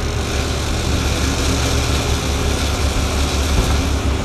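Sportfishing boat's engines running steadily underway, a low hum under the hiss of wind and rushing wake water.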